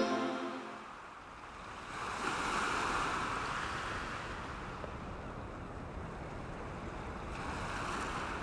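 Music fades out within the first second. Then an even hiss of waves and wind over open water swells up about two seconds in and stays steady.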